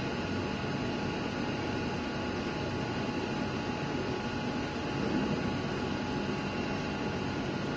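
100-watt CO2 laser cutter running as it cuts a foam sheet: a steady whooshing air noise with faint steady hums, swelling slightly about five seconds in.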